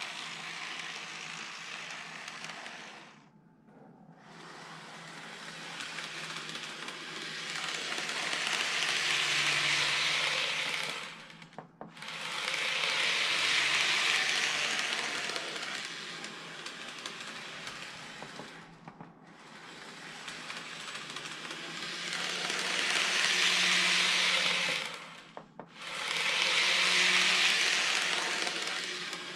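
Greenmax N-gauge powered model of a Shizuoka Railway A3000 two-car train running on layout track: a hissing motor and wheel-rolling noise that swells loud as the train passes close and fades as it runs away, several times over, with four brief sharp drops. A faint steady low hum sits underneath.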